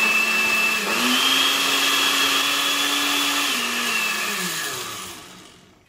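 Electric blender running on a liquid cream mixture (milk, condensed milk, cream and vanilla). Its motor pitch steps up about a second in, drops back a little past three seconds, then the motor winds down and stops near the end.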